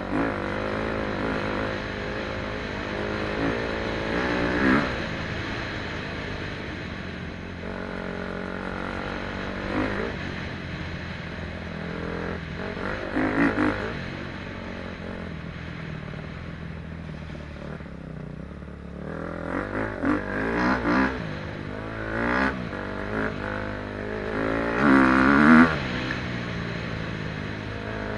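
KTM 250 SX-F motocross bike's single-cylinder four-stroke engine running under way, revving up and down with repeated short throttle bursts; the loudest burst comes near the end.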